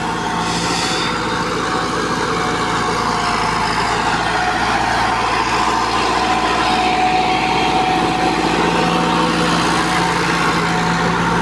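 Combine harvester running steadily at working speed, its engine and machinery holding a constant pitch.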